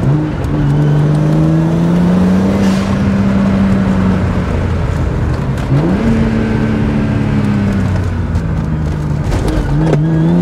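Twin-turbo BMW N54 inline-six engine pulling hard under full acceleration, heard from inside the car's cabin. Its note climbs steadily, jumps and falls back about six seconds in, and starts climbing again near the end.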